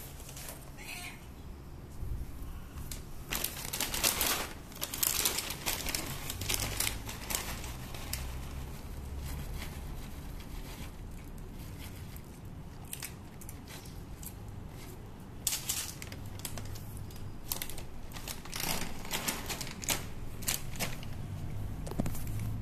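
A plastic cat-food bag crinkling and dry kibble pouring out onto a concrete floor, followed by a cat crunching the dry kibble, with a run of irregular crisp clicks.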